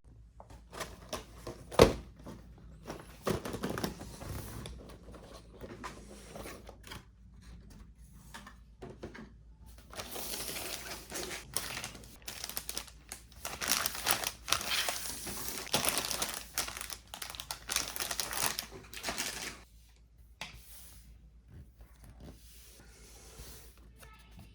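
Plastic packaging of a model kit being handled: crinkling and tearing of plastic bags, with scattered clicks and one sharp knock about two seconds in. The crinkling is densest from about ten seconds in until shortly before the end.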